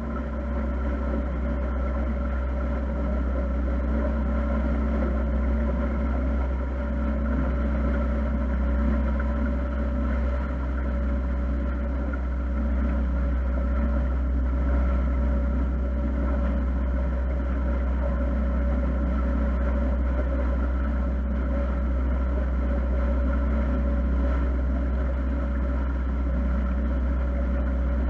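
Motor cruiser's engine running steadily at constant low speed under way: an even drone with a strong low rumble and a few steady tones above it.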